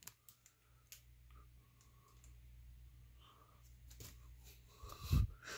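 Faint clicks and light rustling of trading cards being handled, pulled from a freshly opened pack and held up, with a short low sound near the end.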